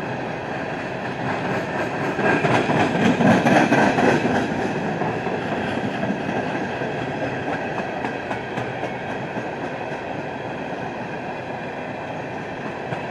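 Empty coal cars of a freight train rolling past, a steady rumble with wheels clicking over the rail joints. It swells louder for a couple of seconds about two seconds in.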